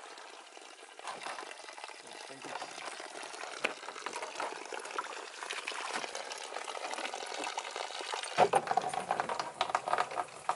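Low-flowing spring water running and splashing, probably as it is collected into containers. It grows louder and fuller from about eight seconds in.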